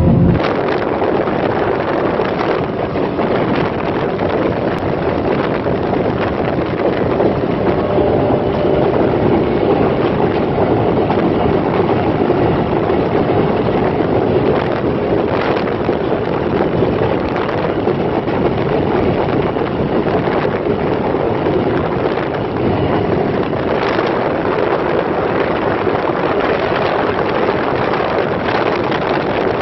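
Mercury XR6 V6 two-stroke outboard running flat out at a steady high speed, heard from the boat's cockpit with wind rushing over the microphone.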